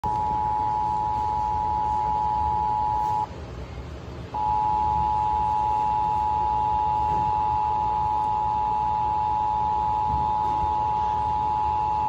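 Emergency Alert System attention signal, the steady two-tone alert, playing through a small portable radio's speaker during a monthly EAS test. It cuts out for about a second about three seconds in, then resumes.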